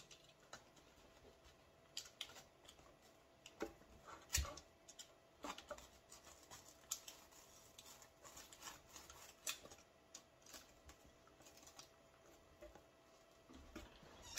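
Faint, scattered scraping and clicking of a hand tool cutting and prying at hardened chemical spray foam inside a plastic battery case, with a sharper knock about four seconds in.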